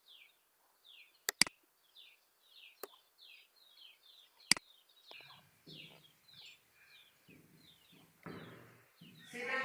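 A bird chirping over and over, each chirp a short falling note, about three a second, with a few sharp clicks about a second and a half in, near three seconds and midway through.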